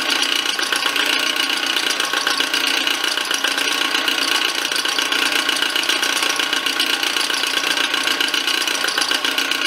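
Milling machine running steadily with its end mill cutting a slot into a round metal arbor: a constant machine hum with a fine, fast, even rattle from the cut.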